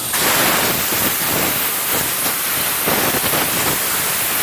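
Compressed-air blow gun blasting a loud, steady hiss into a rear brake backing plate and hub to blow out spider webs. The blast starts suddenly.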